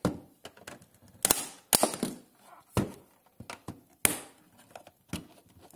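Sharp plastic snaps and clicks, a handful over a few seconds, as a screwdriver pries the pressure-fit black plastic edge strip off the white plastic case of a Clear 4G WiMAX router.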